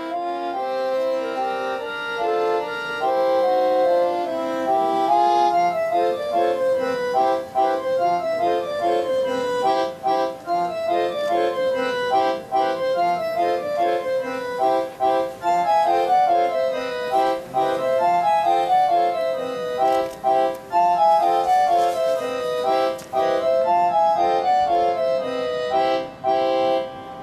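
Instrumental show music: a sustained organ-like keyboard melody over short chords repeated on a steady beat.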